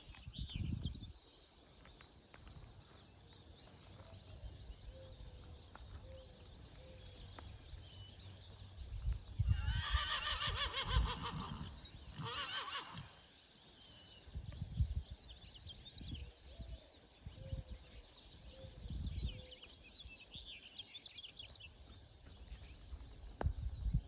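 A horse whinnies: a loud, quavering high call of about two seconds near the middle, followed at once by a shorter second call. Small birds chirp faintly around it, and low thumps of wind or handling hit the microphone now and then.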